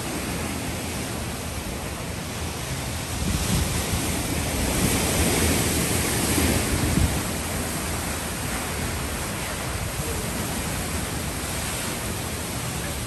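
Hurricane wind and heavy driving rain: a steady rushing noise that swells in a gust a few seconds in, with the wind buffeting the microphone.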